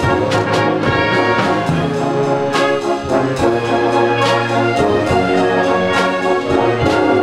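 Concert band playing a rock and roll arrangement, brass leading over woodwinds, with a drum stroke about once a second.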